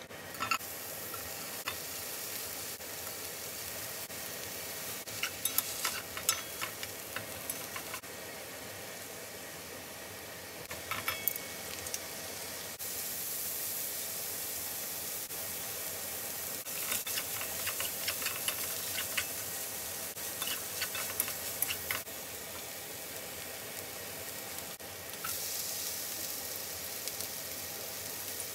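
Chicken, onion and garlic sizzling as they stir-fry in a pan, with clusters of clicks and scrapes from a wooden spatula and chopsticks working the food against the pan several times.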